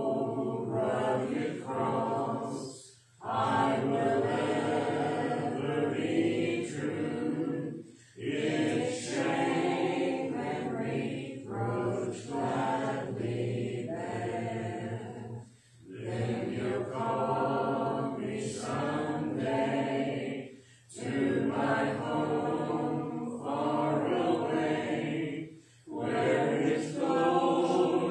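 Congregation singing a hymn a cappella, without instruments, phrase by phrase with short breaks for breath every few seconds.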